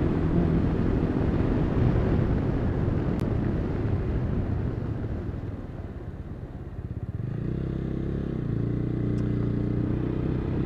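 Motorcycle on the move, with rushing wind noise over the first half. The noise eases around six seconds in, and from about seven seconds the engine's steady drone comes through clearly.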